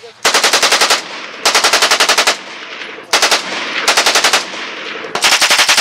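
PM-63 RAK machine pistol, a 9×18 mm Makarov open-bolt gun, fired on full auto in four short bursts of rapid shots, each about a second long. The last burst is still going at the end.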